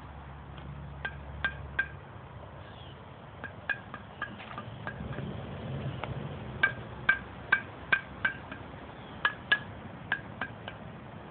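Sharp clinking taps, a hard object striking something that rings briefly, about twenty in irregular groups and loudest in the second half, over a low steady hum.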